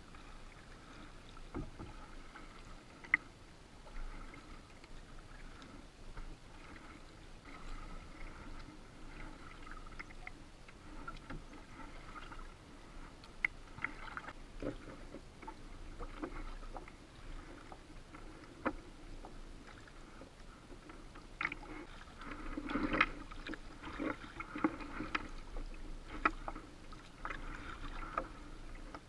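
Kayak being paddled through choppy water: water lapping and splashing against the hull, with a few sharp knocks. The splashing grows louder about three-quarters of the way through.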